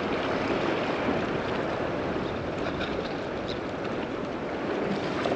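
Steady wash of small waves lapping in choppy shallow water, with wind on the microphone.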